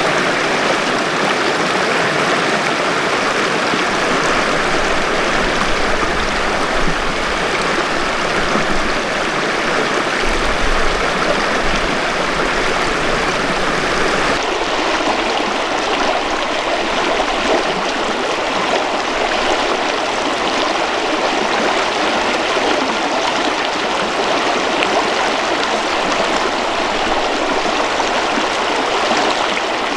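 Mountain river water rushing steadily, an even rush with no break. About halfway through the tone shifts slightly, with less hiss at the top.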